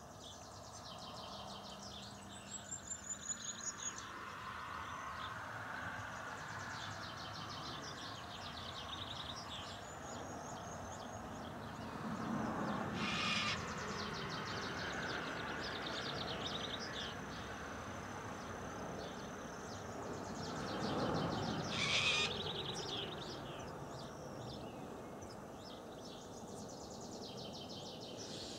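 Outdoor birdsong: small birds chirping and trilling throughout. A quick run of loud pulsing calls comes near the start, and two louder, harsh calls come about halfway and about three-quarters through.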